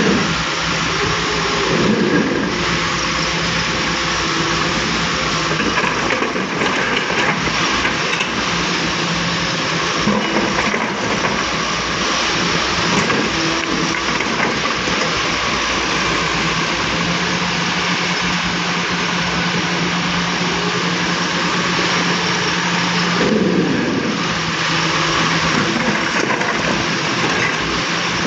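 Volvo excavator's diesel engine running steadily under working load, with hydraulic noise over it. The pitch sweeps down briefly twice, about two seconds in and again near the end.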